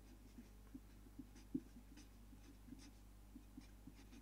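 Marker pen writing on paper: faint, short, irregular strokes and taps as figures are written.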